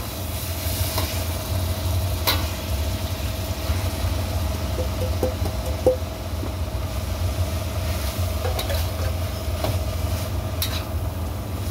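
Grated coconut tipped into a wok of spice paste and stirred with a spatula: soft stirring with a few sharp clinks of the spatula against the wok, over a steady low rumble and hum.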